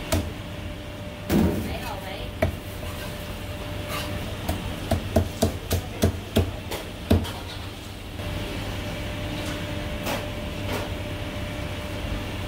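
Chinese cleaver chopping through marinated goose on a thick round wooden chopping block: a few single strikes, then a quick run of sharp chops that stops about seven seconds in.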